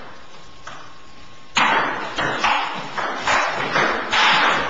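Table tennis rally: a ping pong ball clicking off paddles and the table, a faint click about half a second in, then sharp hits starting about a second and a half in at roughly two a second.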